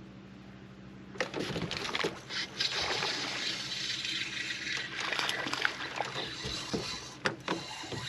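Water rushing and splashing around a fishing boat with scattered clicks, starting about a second in, over a low steady hum.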